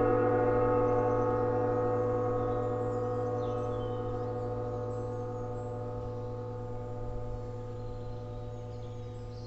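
Large hanging gong ringing out after being struck, a rich stack of overtones held at steady pitch and fading evenly, with no new strikes.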